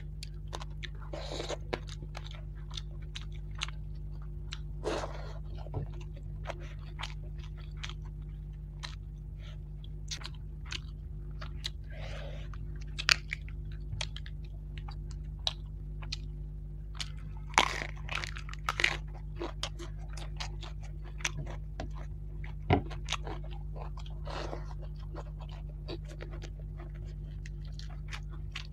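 A person chewing and crunching a mouthful of food close to the microphone, with many short wet mouth clicks and smacks and a few louder crunches midway, eating fried rohu fish, rice and raw cabbage leaf. A steady low hum runs underneath.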